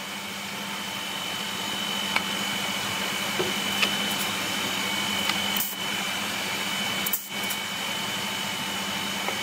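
Woodshop machinery running idle, a table spindle machine turning without cutting, giving a steady drone with a constant whine. A few light wooden knocks come as pieces of wood are set into a clamp.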